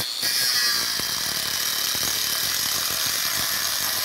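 4-inch electric angle grinder with a thin, fiberglass-reinforced 3/64-inch Klingspor cutting disc, cutting through a weld on square steel tubing. It is a steady high whine over a harsh grinding hiss, which grows louder just after the start as the wheel bites into the metal.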